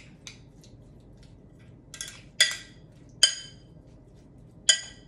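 A metal utensil clinking against a glass mixing bowl while stirring diced fruit salsa: a few soft ticks at first, then four sharp, ringing clinks in the second half.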